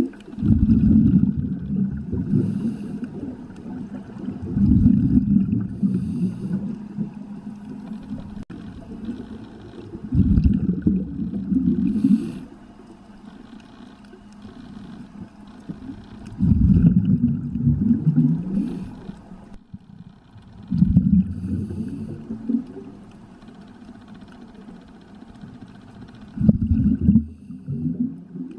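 A scuba diver's exhaled air bubbling out of the regulator, heard underwater through the camera housing: low bursts of a second or two, about every five seconds, with quieter gaps between breaths.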